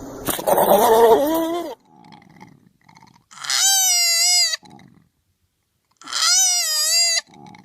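An animal calling out three times: a rougher, lower wavering cry about half a second in, then two long, high-pitched wavering calls of about a second each.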